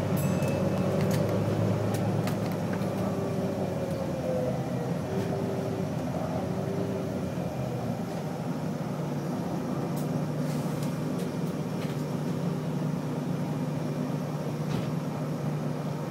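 Interior noise of a moving London bus heard from inside the passenger cabin: a steady low drone from the engine and running gear, with a few faint clicks and rattles.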